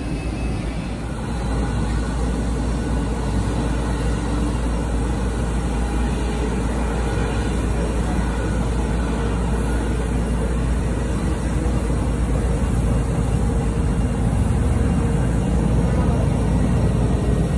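Airliner jet engines on the airfield, a steady low rumble with a faint whine above it. It grows a little louder over the last few seconds.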